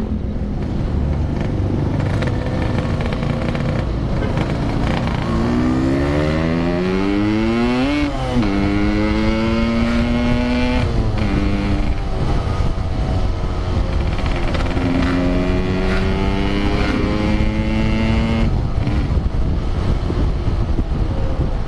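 Yamaha RX-King 135cc two-stroke motorcycle engine accelerating through the gears. Its pitch climbs steeply, drops sharply at a gear change about 8 seconds in, and drops again near 11 seconds. It then climbs and holds again in the second half, over steady wind and road rush.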